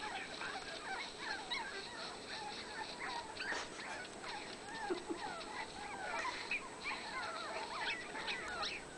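A litter of puppies whining and yelping, many short wavering high calls overlapping without a break, played through a laptop's speakers.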